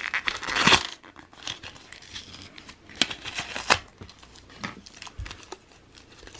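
Hands prying and tearing open a small plastic blister pack on a card backing: crinkling plastic, a loud tearing stretch near the start, and two sharp snaps about three seconds in.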